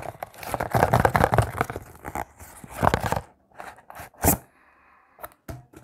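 Cardboard parcel box being torn open: tape and flaps ripping and cardboard crunching for about three seconds, then a few lighter handling noises and one sharp click a little after four seconds in.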